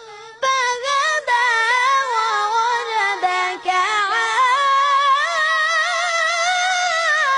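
A young boy's voice reciting the Quran in melodic tajweed chant, a cappella, drawing out long ornamented notes that waver in pitch. He takes a short breath about half a second in.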